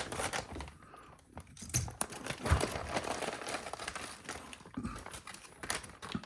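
Plastic parts bags being handled and opened, crinkling and rustling irregularly with small sharp clicks.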